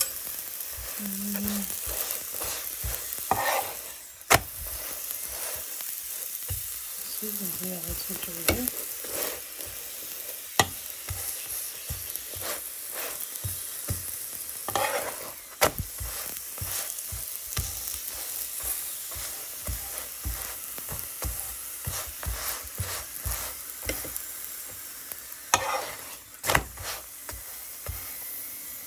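Flatbread sizzling in oil in a nonstick frying pan, with a steady frying hiss. A metal spoon spreading the oil makes frequent light clicks and scrapes on the pan, with a few sharper knocks.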